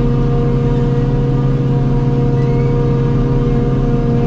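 Forage harvesting rig's engine running steadily under load while chopping grass silage, a constant drone with a strong low hum.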